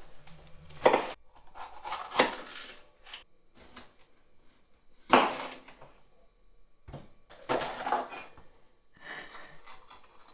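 Kitchen clatter from dishes and utensils being handled on a counter, coming in about five separate short bursts with pauses between.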